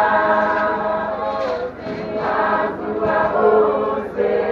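A choir of mixed voices singing a hymn in harmony, accompanied by hosho, Zimbabwean gourd rattles, shaken in time.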